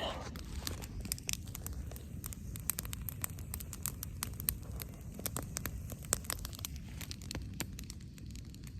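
Campfire crackling: irregular sharp snaps and pops over a low steady rumble.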